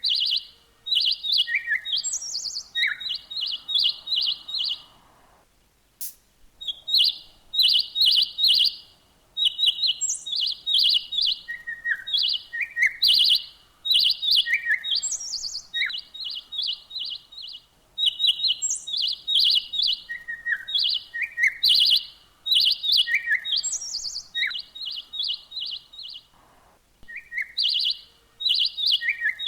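Birds chirping in quick runs of short, high notes, each run a few seconds long with brief pauses between, and occasional higher and lower single notes mixed in.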